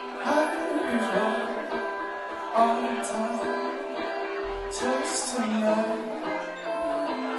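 Live band playing a song: electric guitars, keyboard and drums, with cymbal crashes about three seconds in and again near five seconds.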